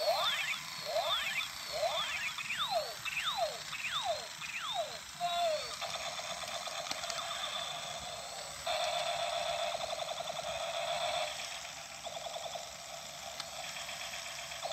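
Battery-operated toy robot's electronic sound effects: a run of about seven falling zaps, roughly one and a half a second, for the first five seconds, then a steady electronic buzzing that steps louder at about nine seconds and drops back at about eleven.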